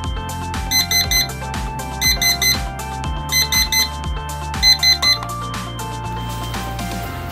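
BlueSnail digital kitchen timer's alarm going off: four bursts of rapid high-pitched electronic beeps, about 1.3 seconds apart, which stop about five seconds in. Background music plays throughout.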